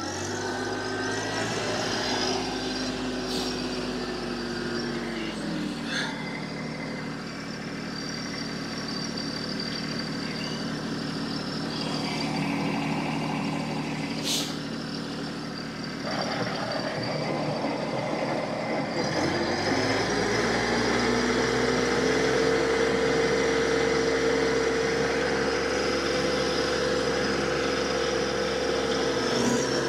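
TYM T264 compact tractor's diesel engine running as it drives a PTO rotary tiller through clay soil. The engine pitch drops about five seconds in, then rises about twenty seconds in and holds steady at a higher speed.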